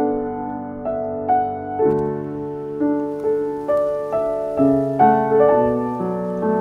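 Soft piano music: notes and chords struck about twice a second, each left to ring and fade.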